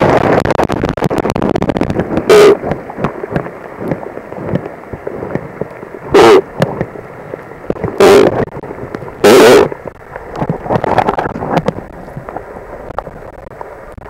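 Channel catfish croaking underwater: four short, loud croaks, about two, six, eight and nine seconds in, over a steady underwater wash of water noise.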